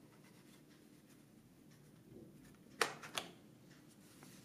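Two sharp plastic clicks about three seconds in, the first louder, as the Neewer NW-561 speedlite's flash head is swivelled round by hand. The rest is faint handling and a low steady room hum.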